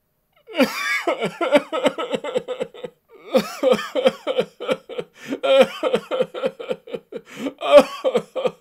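A man's voice sobbing in rapid, jerky bursts, about six a second, breaking off briefly about three seconds in.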